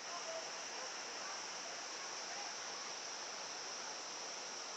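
Steady high-pitched insect drone over the constant rush of a waterfall, with a few faint short chirps.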